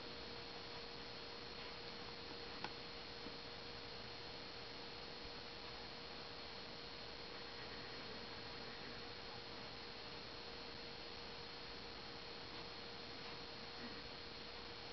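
Quiet room tone: a steady hiss with a faint constant hum, and one small click a little over two seconds in.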